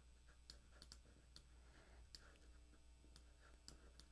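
Near silence: faint room hum with about half a dozen faint, scattered clicks.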